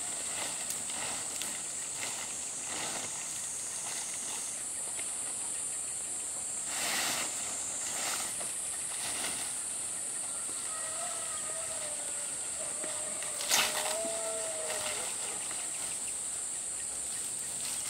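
Dry palm fronds rustling as they are handled on a thatched roof, over a steady high-pitched insect drone. A sharp snap stands out about two-thirds of the way in.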